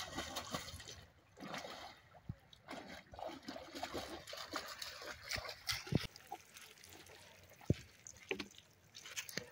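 River water splashing and trickling as a dog swims and wades out through the shallows with a big stick in its mouth. A few short knocks come in the second half.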